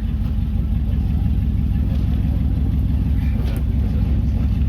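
Truck engine running with a steady deep, low rumble.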